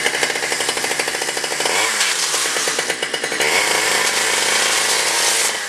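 Chainsaw running at high revs, its pitch dipping and climbing back about two seconds in and again a little later; it cuts off near the end.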